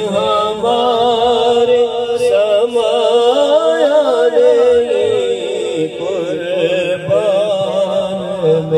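A man reciting a naat unaccompanied, singing long drawn-out melismatic notes that waver and glide in pitch.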